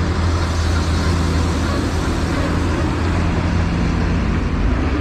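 Heavy goods lorry pulling uphill close by, its diesel engine running with a steady low hum under continuous road noise.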